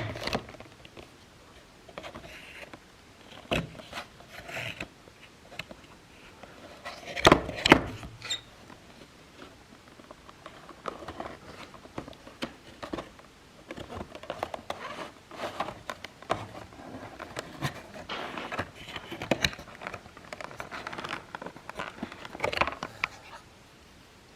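A model airliner's box being opened and its packaging handled: scattered rustles, scrapes and small clicks, with a louder burst of knocks about seven seconds in.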